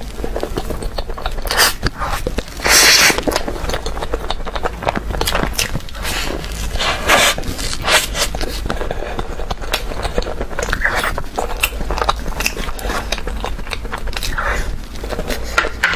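Soft cake and chocolate mousse being eaten: wet bites, chewing and lip smacks, with a louder stretch of biting about three seconds in. Near the end a spoon scrapes the mousse.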